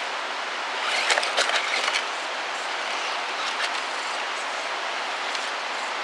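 Axial SCX10 Deadbolt RC rock crawler on Gmade Bighorn tyres crawling over rock and dry pine needles. A cluster of crackles and clicks comes about a second in, over a steady rushing hiss.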